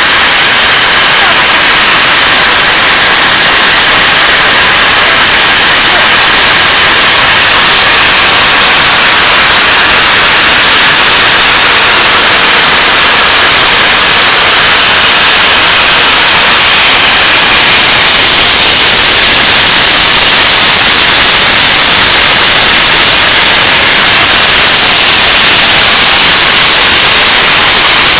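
5PJ-5 bean polishing machine running steadily, a loud even rushing noise with no distinct beat or tone.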